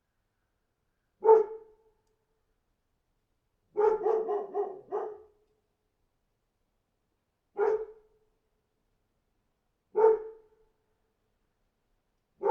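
A dog barking: one bark about a second in, then a quick run of about five barks, then single barks about every two and a half seconds, with dead silence between them.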